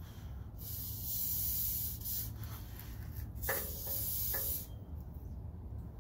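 Aerosol can of silicone lubricant sprayed twice, about a second and a half and then about a second, onto the rubber exhaust hangers to loosen them for removal. The second burst sputters slightly.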